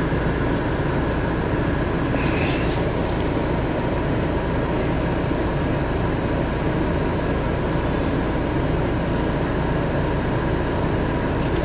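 Steady cab noise of a Fiat Ducato-based motorhome standing at idle: the diesel engine runs with an even low hum and a few faint steady higher tones. A few faint ticks come about two to three seconds in.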